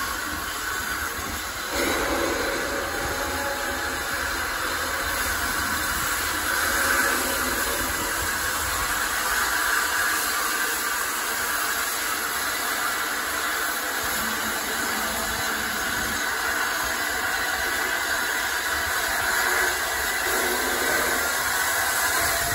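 LNER A3 Pacific steam locomotive Flying Scotsman rolling slowly by with a steady hiss of escaping steam, louder from about two seconds in.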